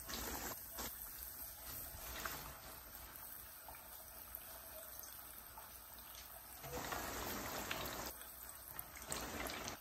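Hot cooking grease sizzling faintly in a pan for frying cornmeal-battered fish, a little louder for a couple of seconds near the end.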